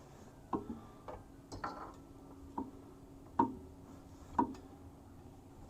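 Sharp metal clinks with a short ring, about one a second: the splined inner end of a rear axle shaft knocking against the differential as it is worked in to find the spline groove.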